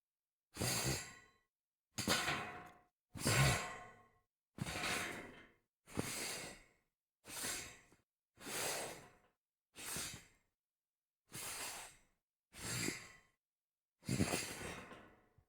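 A series of separate slides across a metal grate: eleven short noisy sweeps, each about a second long, starting sharply and fading out, with silence between them.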